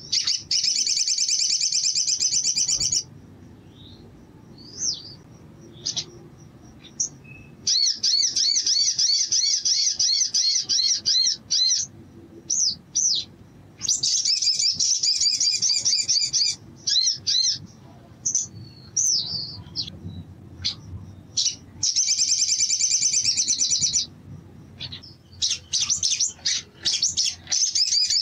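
Olive-backed sunbird singing: five long, rapid, high trills of two to four seconds each, with short separate chirps in the gaps between them.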